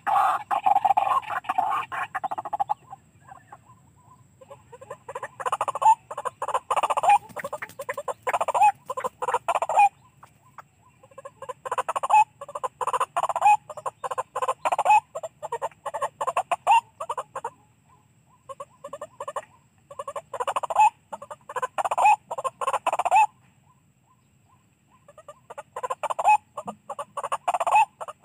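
White-breasted waterhen calls played back through a radio as a lure: bouts of rapid, repeated croaking notes lasting several seconds, separated by short pauses.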